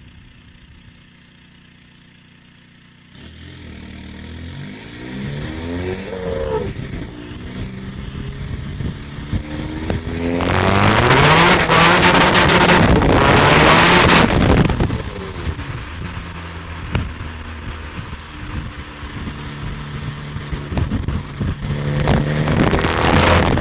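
2.0-litre CR140 common-rail diesel with a Garrett GTB2260VK turbo being revved. The engine sound steps up about three seconds in and rises in a couple of short revs. From about ten seconds in it is held on a hard-cut rev limiter for some five seconds, a loud rapid stutter. It then drops back to a steady tickover and rises again near the end.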